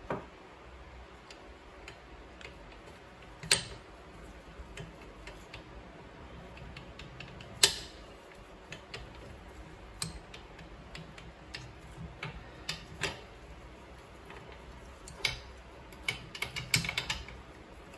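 Metal shift forks and transmission parts in a four-stroke dirt-bike engine case clicking and clinking as they are worked loose by hand. The clicks are sharp and scattered, with two louder knocks, one a few seconds in and one before the middle, and a quick run of clicks near the end.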